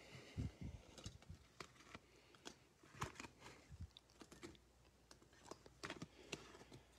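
Faint, irregular clicks and taps of trading cards in rigid plastic holders being picked up and stacked against one another in the hand.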